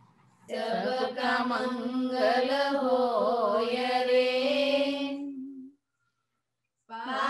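Women's voices chanting a prayer together on a long held note, with the tune wavering in the middle. The chant fades away a little over five seconds in.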